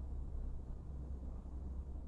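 Domestic cat purring, a low steady rumble.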